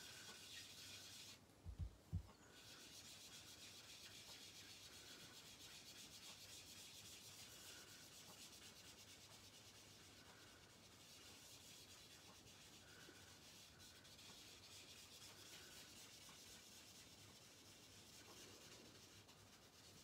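Faint rubbing of an ink dauber worked in circles over paper, blending ink onto it. Two soft low thumps about two seconds in.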